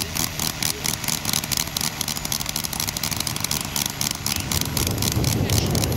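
Quarter-scale nine-cylinder four-stroke Bentley rotary model aircraft engine running steadily with a rapid, even beat while turning its propeller. It grows a little louder about five seconds in.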